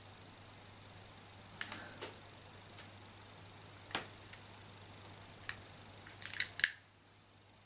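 Light plastic clicks and taps of an opened computer mouse's casing and parts being handled during disassembly: scattered single clicks, then a quick cluster near the end, the loudest of them last.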